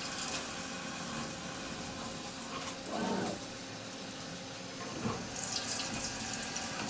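Milltronics TRM3016 CNC mill drilling a steel ring under flood coolant: a steady splashing and hiss of coolant over the running spindle and drill.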